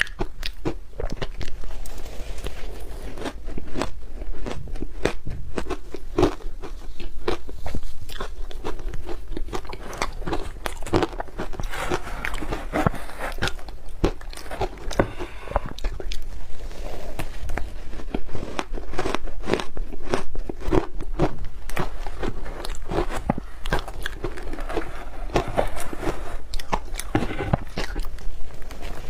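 Pink ice being bitten and crunched between the teeth close to the microphone: a dense, irregular run of sharp cracks and crunches with chewing.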